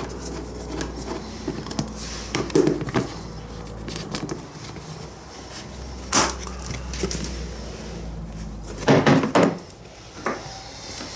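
Rummaging for tools: scattered knocks and clatter of objects being moved, with one sharp knock about six seconds in and a louder burst of handling around nine seconds, over a low steady hum that stops near the end.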